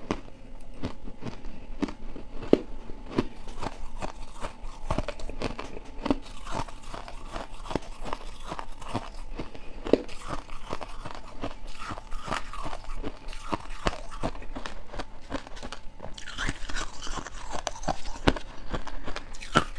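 Crunching and chewing of powdery frost ice, many sharp irregular crunches. Near the end a metal spoon scrapes and scoops through the shaved ice in a steel pot.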